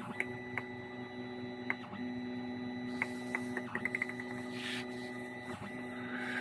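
A steady low machine hum that breaks off briefly twice, with scattered light clicks and taps.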